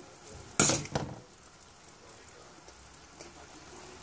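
A short clatter of a utensil against a china plate just over half a second in, with a smaller knock just after, while sauce is served over chicken tikki and fries. Otherwise quiet room tone.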